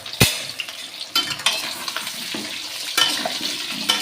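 Potato pieces frying in a little hot oil in a kadai, sizzling steadily while a spatula stirs them. The spatula knocks against the pan several times, hardest just after the start.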